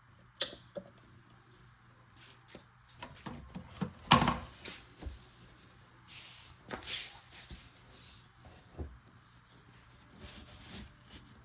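Scattered light knocks and rubbing from hands working in the cabinet under a kitchen sink while the new garbage disposal flange is checked for leaks, with one louder thump about four seconds in and a short rustle near seven seconds.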